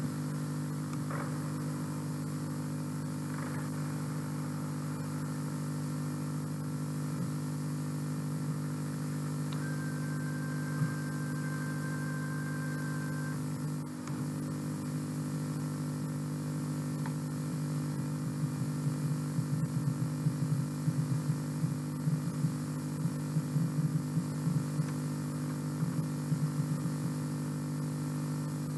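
Steady low electrical hum with hiss on the audio track of old home-video tape, with irregular crackling through the second half and a faint steady high tone for a few seconds about ten seconds in.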